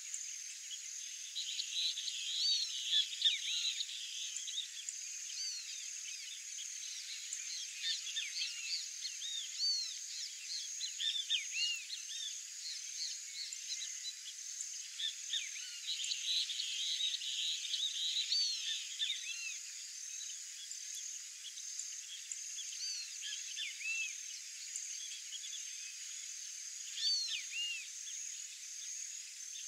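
Dense chorus of calling wildlife: many short, overlapping chirps and whistled notes over a steady high-pitched ringing tone. It sounds thin, with no low end.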